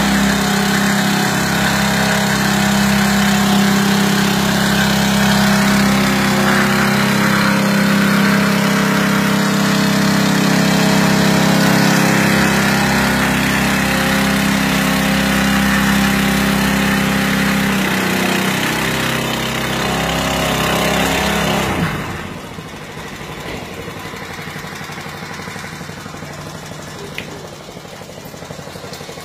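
Small engine-driven water pump on a water bowser skid running steadily at working speed while its spray boom sprays water. About three-quarters of the way through the sound drops abruptly to a much quieter engine sound.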